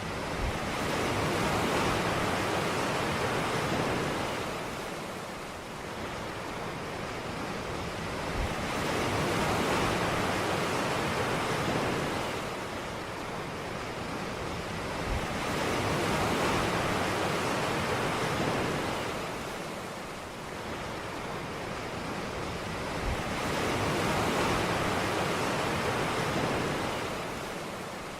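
Ocean waves breaking and washing up a beach, the surf swelling and fading roughly every seven to eight seconds.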